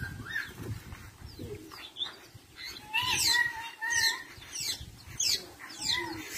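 Long-tailed shrike (cendet) singing: quick high notes that sweep downward, repeated about twice a second, with some lower notes between them. The song gets louder and busier about three seconds in.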